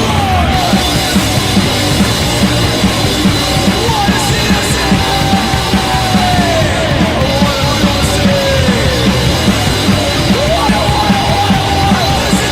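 Punk rock band playing a rehearsal take: drum kit, bass and distorted guitar, with a high melodic line sliding and bending in pitch over a steady beat.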